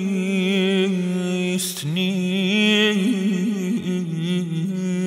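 A solo male voice sings a slow Persian monajat (prayer chant) in dastgah Homayoun, holding long notes with a wavering, ornamented pitch. About a second and a half in, the sung word «nist» briefly breaks the line with a hiss.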